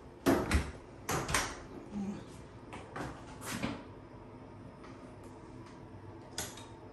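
A run of sharp knocks and clatters, the two loudest about half a second apart near the start, then a few fainter bumps over the next three seconds.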